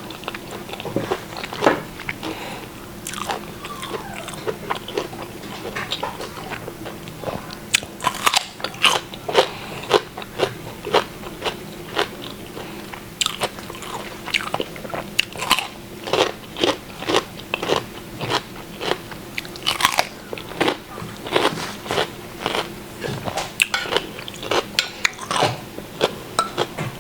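Close-miked eating: a person chewing food with many crisp, crunchy bites at an irregular pace.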